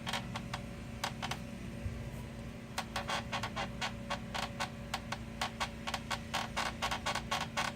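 Short, sharp creaking clicks from a Jeep Wrangler's underside as it is rocked by the rock slider. They are sparse at first and come several a second from about three seconds in, over a steady low hum. The noise comes from a plastic bottle wedged between the crossmember and the transmission pan.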